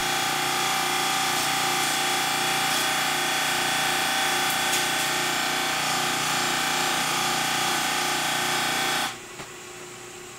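Bench buffer's spinning cloth wheel polishing a sewing-machine main shaft held against it: a steady rushing whir with a constant hum. About nine seconds in it drops sharply as the shaft is lifted off, leaving the buffer running more quietly.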